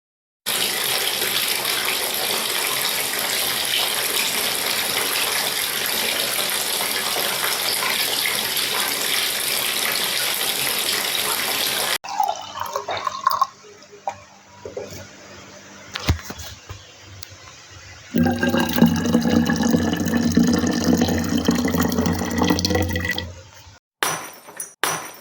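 Running water: a steady rush for about eleven seconds that cuts off suddenly, then quieter irregular trickling, then another louder stretch of running or filling water with a steady tone in it, ending in a few sharp clicks.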